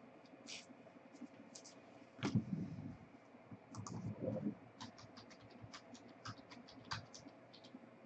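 Trading cards being handled on a table: scattered light clicks and scratches of cards being flipped and slid, with two louder rustling handling noises about two and four seconds in.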